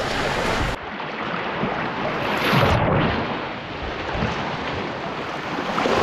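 Small sea waves washing onto the shore, the surf surging about halfway through and again near the end, with wind on the microphone.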